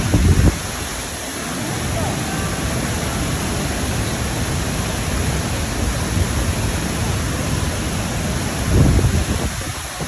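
Ouzoud Falls' tall waterfall plunging into its pool: a steady, loud rushing of falling water. Low gusts of wind hit the microphone near the start and again about nine seconds in.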